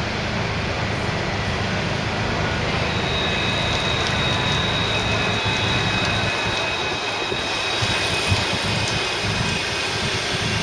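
Luas light-rail tram (Alstom Citadis) pulling into a street stop: a steady rumble of the tram running slowly on its rails, with a high thin whine that sets in about three seconds in and fades out about seven seconds in as it comes to the platform.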